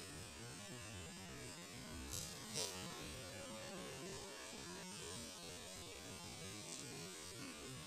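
Steady low background hum, with a brief hiss about two and a half seconds in.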